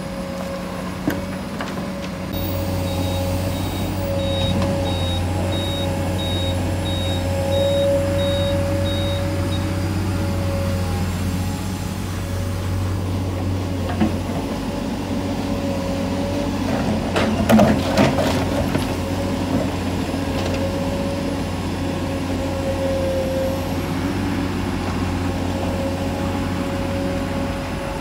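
Komatsu hydraulic excavator's diesel engine running steadily under load while it digs, with a deep hum and a wavering whine. A short cluster of knocks and scrapes comes about two-thirds of the way through.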